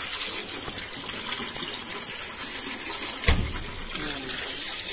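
A stream of water pouring and splashing into a tub crowded with live eels, a steady rushing fill. A single sharp thump about three seconds in.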